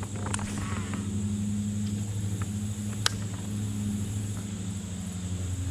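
A motor running steadily with a low, even hum, and a single sharp click about three seconds in.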